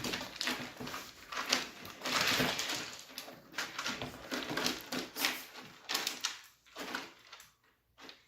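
Chihuahuas scuffling and moving about, a busy run of irregular rustles, scrapes and small clicks that dies down near the end.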